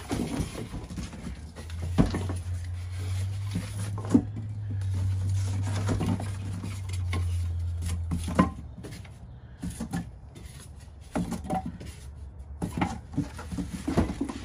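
A cardboard box being handled: flaps rustling and the box knocking and bumping several times as it is lifted and tipped. A low steady rumble runs under it from about two seconds in until past the middle.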